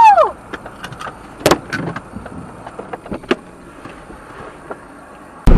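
Quiet inside a stopped car, broken by a few sharp clicks and knocks: the loudest about a second and a half in, another just after it, and one more near three seconds. It opens with a short whistle-like tone that rises and falls.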